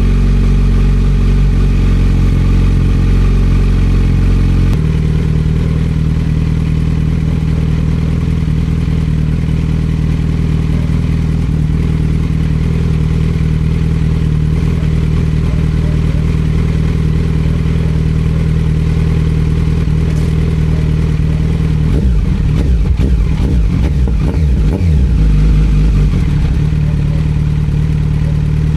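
Kawasaki Z900 SE inline-four motorcycle engine idling steadily as it warms up after a cold start. Its note drops about five seconds in, and it runs unevenly for a few seconds past the twenty-second mark.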